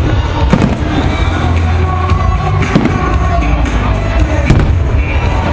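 Fireworks going off in several sharp bangs a second or two apart, over loud music with a heavy steady bass.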